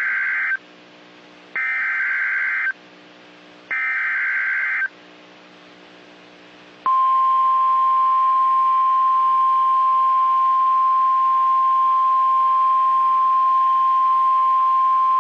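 Emergency Alert System SAME header: three bursts of warbling digital data tones, each about a second long with about a second's gap between them, then about 7 s in the NOAA Weather Radio 1050 Hz warning alarm tone, one steady high-pitched tone, that marks a weather warning about to be read.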